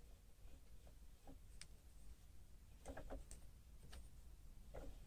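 Near silence: room tone with a few faint, scattered clicks, the lathe not running.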